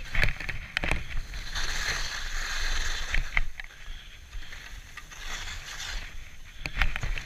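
Skis swishing through deep, soft snow in a run of turns, the hiss swelling and fading with each turn, with a few sharp knocks and clicks in between.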